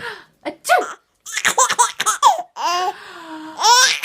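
Baby laughing in short, high-pitched bursts, with a longer drawn-out laugh near the end.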